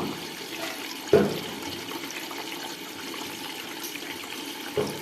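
Water hissing steadily into an LG washing machine through its inlet solenoid valve, which is stuck open and lets water in even with the machine switched off. There is a sharp knock about a second in and another near the end.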